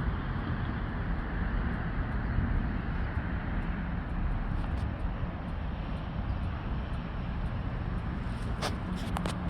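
Steady engine rumble, with a few sharp knocks near the end.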